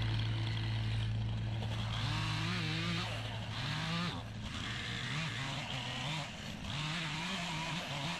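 A vehicle engine running, steady at first, then its pitch repeatedly rising and falling as the throttle is worked.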